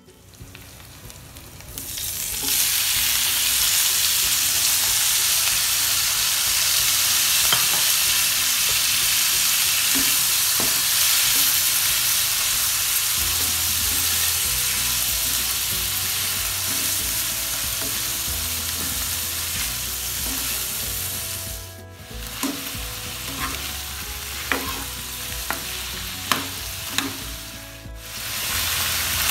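Sliced bamboo shoots dropped into hot oil with garlic in a wok, sizzling loudly and steadily as they stir-fry. In the later part a few sharp clicks of a utensil against the pan break through the sizzle.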